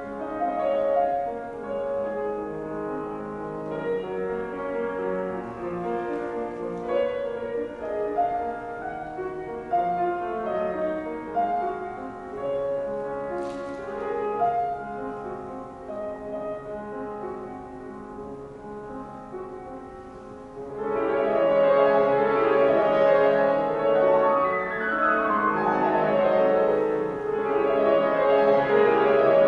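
Solo grand piano playing a classical piece, quieter and lighter for most of the time, then suddenly much louder and fuller about two-thirds of the way through.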